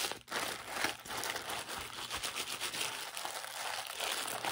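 Zip-top plastic bag full of shaving cream crinkling and rustling steadily as it is kneaded and squeezed in the hands, a continuous fine crackle.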